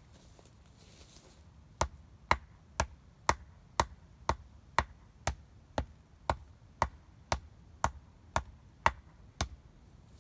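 An axe pounding the top of a wooden stake to drive it into the ground. There are about sixteen sharp knocks at a steady two a second, starting about two seconds in.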